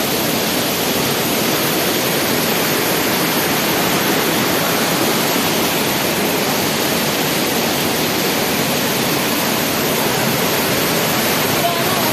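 Waterfall close by: a loud, steady rush of falling water with no change in level.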